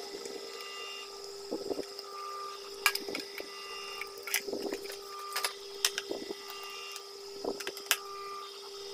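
Scattered sharp clicks and light knocks from the plastic parts, switch and wire connectors of an opened food processor being handled, over a steady hum. Soft low sounds recur every second or so.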